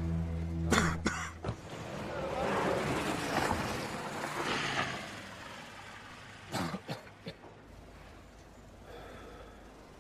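Background music ends about a second and a half in, with a couple of sharp knocks like a car door shutting. A car then drives off over dirt and rubble, and a few short throaty sounds like a cough follow before quiet outdoor ambience.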